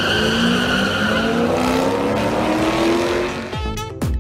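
Two cars launching in a drag race, one a teal Corvette: engines revving higher and higher as they pull away, with a tire squeal that stops about a second in. Upbeat electronic music with sharp beats cuts in near the end.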